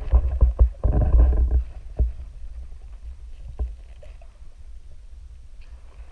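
Knocks and scrapes on a GoPro's waterproof housing, heard muffled from inside the housing underwater, as a crab's claws and legs handle the camera: a cluster of knocks in the first two seconds, one more a little past halfway, then a low steady noise.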